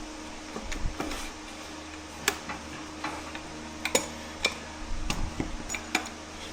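Irregular metal knocks and clicks as the piston, its rings squeezed by the tapered bore, is worked into the cylinder of a 5 HP Economy hit-and-miss engine, with a faint steady hum underneath.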